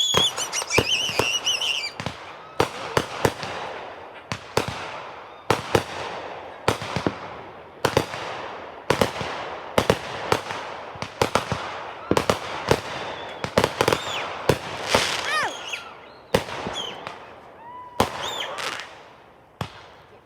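Aerial fireworks going off in a steady string of sharp bangs, each echoing away. The bangs come thick and fast about two seconds in and again about two-thirds of the way through. A few whistling shells glide in pitch among them.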